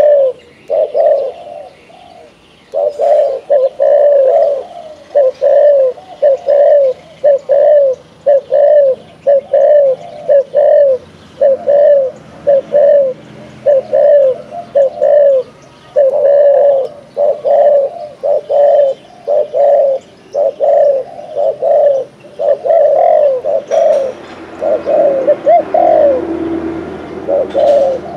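Male spotted dove cooing, a long run of short coos about two a second with a brief pause about two seconds in. These are the bow-coos ("gù") it gives while bowing in display.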